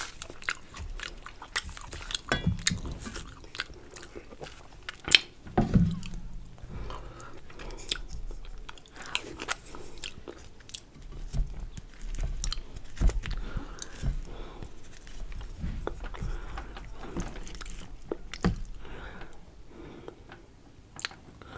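Close-up mukbang eating sounds: a person chewing and biting food close to the microphone, with irregular wet smacks and clicks and a few louder bites.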